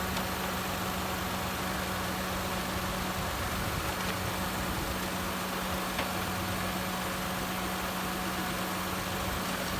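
Daihatsu Mira Gino L700's three-cylinder engine idling steadily, with the air conditioner running during a refrigerant top-up. There is one faint click about six seconds in.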